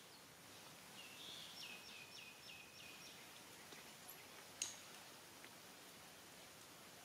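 A faint series of about six short, high-pitched animal calls, about three a second, followed a little later by a single sharp click.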